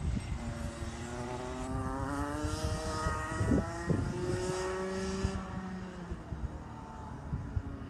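Single-cylinder two-stroke Rotax Max 125cc kart engine heard from trackside, its note rising steadily in pitch as the kart accelerates, then fading after about five seconds.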